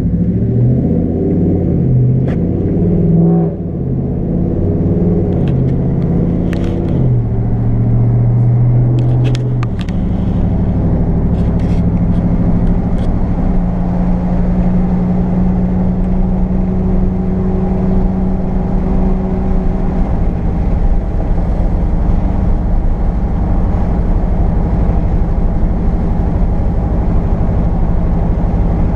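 Ram 1500 pickup's engine running while driving, its pitch shifting up and down through the first ten seconds, then holding steady.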